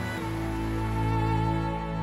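Slow background music of long held chords, with the chord changing just after the start.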